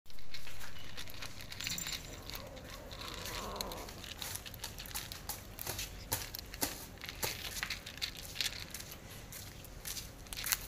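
Cats crunching dry kibble from a plate: irregular crisp crunches and clicks, with a louder noise at the very start that fades over the first couple of seconds.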